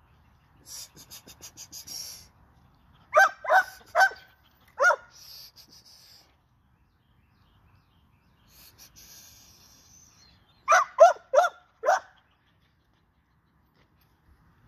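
American Pit Bull Terrier puppy barking in two bursts of four short yaps, the second burst about seven seconds after the first, with quick panting between the bursts.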